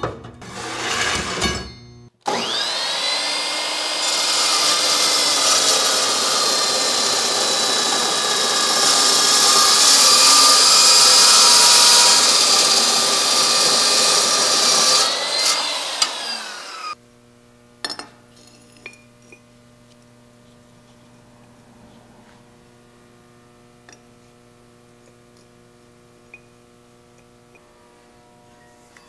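Dry-cut metal chop saw spinning up and cutting through steel tubing for about fourteen seconds, the toothed blade ringing with a high whine over the steady cutting noise, then winding down. A few faint clicks of metal being handled follow.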